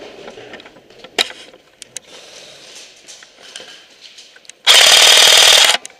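Airsoft electric rifle fired close by in one full-auto burst of about a second near the end, a fast, even string of shots. Before it, scattered sharp clicks and taps.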